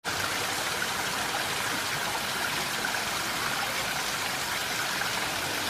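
A steady, even rush of water, with no pauses or changes.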